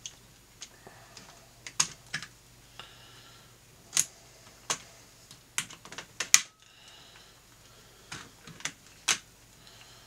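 Irregular sharp little plastic clicks and snaps, about a dozen, as the plastic rivet heads holding the faceplate to the circuit board of a 1986–89 Corvette C68 electronic climate control controller are picked and popped away. The loudest snap comes a little past the middle.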